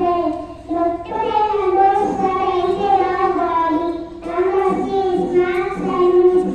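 A young girl singing into a microphone, holding notes in phrases with a couple of brief pauses between them.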